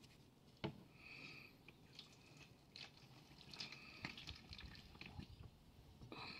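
Faint, slow drips of used engine oil from the outboard's drain falling into a drain pan, about one a second.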